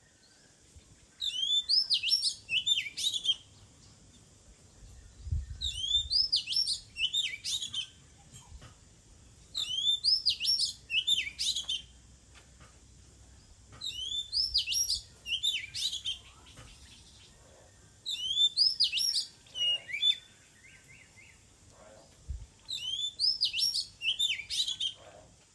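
Oriental magpie-robin singing: six short phrases of quick rising and falling whistles, repeated about every four seconds.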